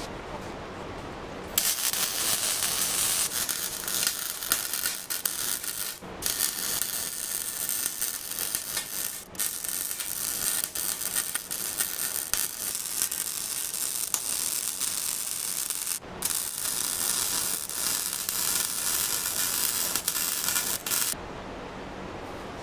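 Wire-feed welding arc crackling steadily as beads are laid on the steel drift trike frame. It starts about a second and a half in, breaks off briefly three times, and stops shortly before the end.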